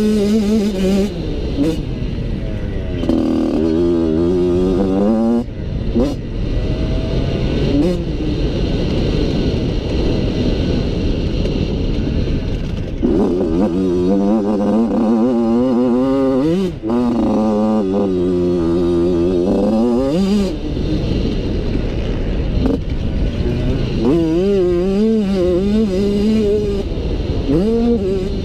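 Motocross bike engine heard from a camera mounted on the bike, revving up and falling back again and again as the rider accelerates, shuts the throttle and shifts around the track, with brief drops where the throttle is chopped.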